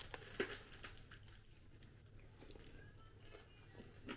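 Someone bites into and chews a piece of freshly baked minced-meat pide with a crisp crust. A burst of crunchy bites comes in the first second, followed by faint chewing.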